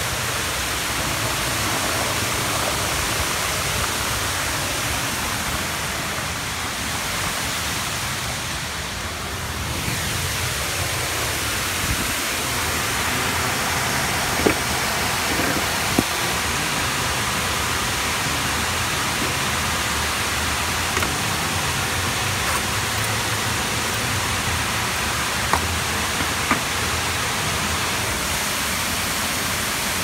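Steady rushing of a waterfall, a dense even roar of falling water, with a few short clicks in the second half.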